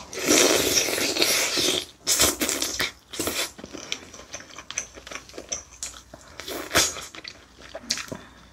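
Close-up eating sounds from a mukbang: a long, loud slurp for about the first two seconds, two shorter slurps soon after, then wet chewing and lip smacks with one sharper sound later on.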